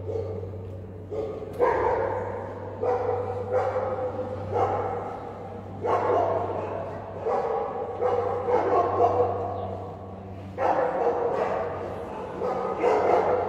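Dogs barking again and again, each bark echoing in a large hall, over a steady low hum.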